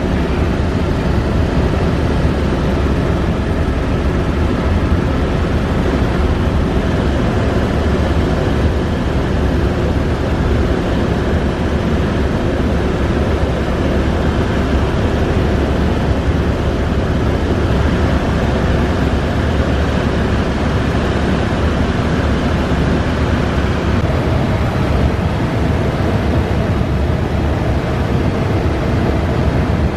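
Helibras AS350 B3 Esquilo helicopter in flight, heard from inside the cockpit: the steady drone of its turboshaft engine and main rotor, with a deep rumble underneath.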